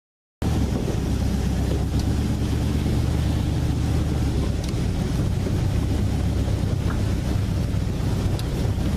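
Swamp buggy's engine running steadily while under way, with wind buffeting the microphone. It cuts in suddenly about half a second in.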